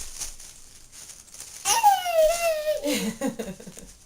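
A toddler's high-pitched squeal, falling slowly in pitch over about a second, followed by short choppy giggling sounds. A few light clicks and rustles of handled toys come before it.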